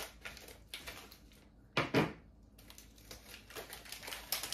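Scissors cutting and plastic mochi packaging crinkling as the package is opened and a wrapped mochi is unwrapped: a run of small clicks and rustles, with a louder handling noise about two seconds in.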